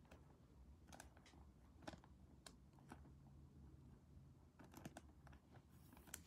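Faint ticks and plastic rustles of a trading card being handled and slid into a clear soft plastic penny sleeve, a few scattered clicks a second or so apart.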